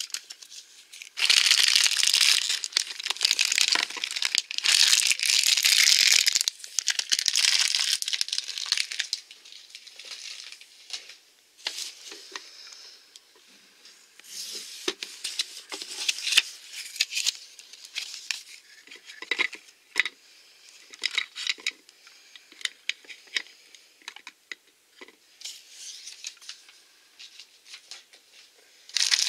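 Crinkly toy packaging being handled and torn close to the microphone: loud rustling from about a second in until about nine seconds, then quieter scattered crinkles and clicks.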